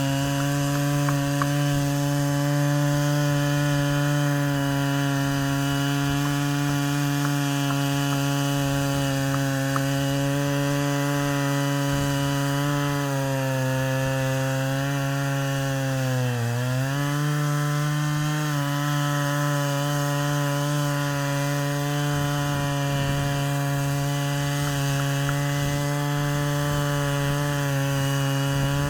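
Stihl MS 660 two-stroke chainsaw at full throttle on an Alaskan chainsaw mill, ripping western red cedar lengthwise into a slab with a 36-inch bar and rip chain. The engine pitch holds steady, drops sharply for a moment about sixteen seconds in, then climbs back.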